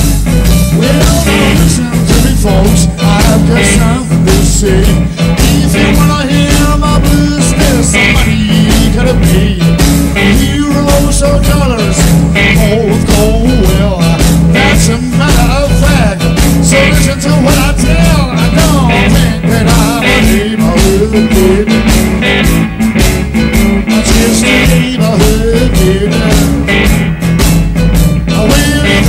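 Live blues-rock band playing: Gibson Les Paul electric guitar, bass, keyboards and a drum kit, with a man singing.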